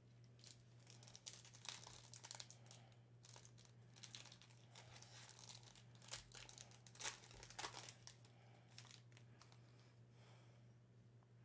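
Faint crinkling and tearing of a foil trading-card pack wrapper being ripped open, with irregular rustles as the cards are pulled out and handled.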